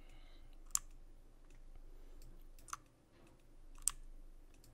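Computer mouse clicking: a few sharp clicks, three of them loud and spaced one to two seconds apart, over a faint steady hum.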